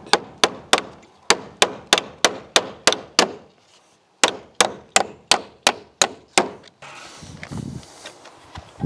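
Hammer driving nails into wooden boards: sharp, evenly spaced strikes about three a second, pausing briefly a little over three seconds in, then a second run of strikes. The hammering stops after about six and a half seconds, giving way to rustling and handling sounds.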